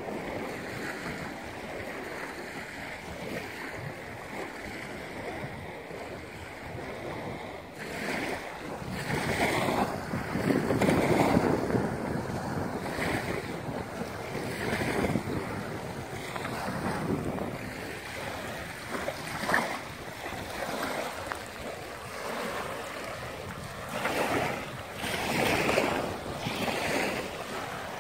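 Small waves breaking and washing up a sand and pebble shore, mixed with wind on the microphone; the noise rises and falls in surges, loudest about a third of the way in and again near the end.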